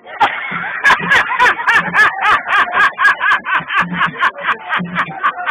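A man laughing loudly in a rapid, even run of bursts, about five a second, each one rising and falling in pitch.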